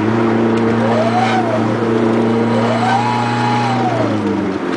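Dodge SRT-4's turbocharged four-cylinder held at a steady raised speed, with a strange high tone that rises and falls twice over the engine note; the engine drops back near the end. The owner puts the sound down to a failing 16G turbo with extreme horizontal shaft play.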